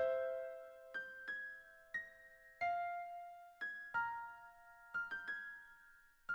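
Solo piano playing a slow, quiet passage in C-sharp minor. Single notes and small chords are struck about once a second and each is left to ring and fade.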